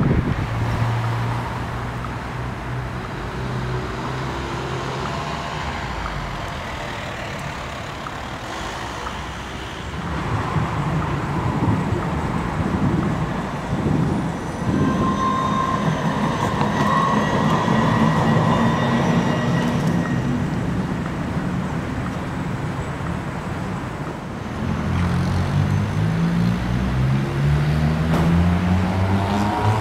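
Road traffic: motor vehicle engines running and passing. Near the end one engine rises steadily in pitch as it speeds up.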